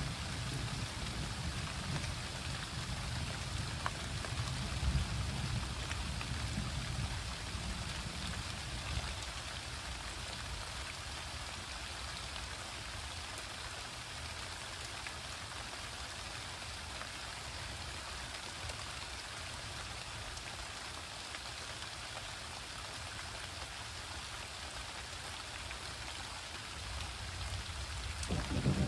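Steady rain falling during a thunderstorm. Low thunder rumbles through the first several seconds, fades away, and a new rumble builds near the end.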